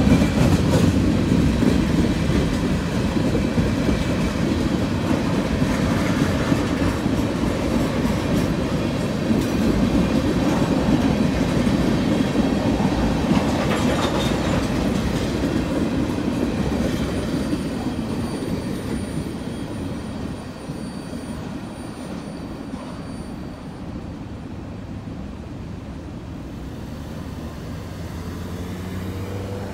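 Freight train cars, tank cars and covered hoppers, rolling past at a grade crossing: a steady rumble and clickety-clack of steel wheels on the rail joints. It fades over the last ten seconds or so as the end of the train goes by.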